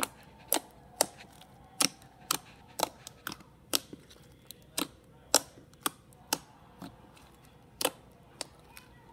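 Crunchy slime with a few beads in it, pressed, poked and folded by hand, giving sharp popping clicks about twice a second at uneven intervals.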